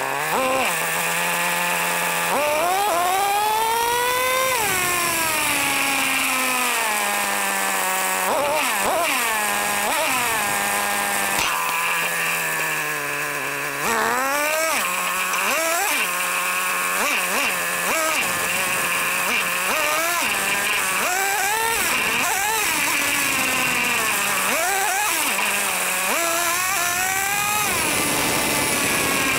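Traxxas T-Maxx 3.3 nitro RC monster truck's small two-stroke glow engine, heard close up from on board. It revs up in repeated rising bursts and drops back to a steady idle between them.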